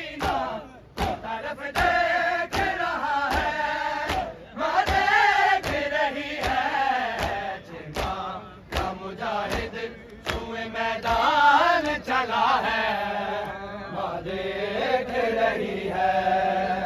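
Men's voices chanting a Shia mourning noha, with a regular beat of sharp slaps about once every three-quarters of a second from matam, the mourners beating their chests in time.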